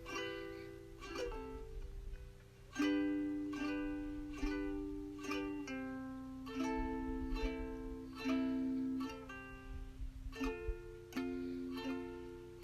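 Instrumental music: a plucked ukulele playing a slow picked melody, each note ringing and fading.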